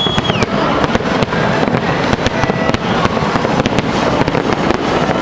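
Aerial fireworks going off in a rapid barrage: many sharp bangs and crackles one after another over a continuous din. A short whistle ends just after the start.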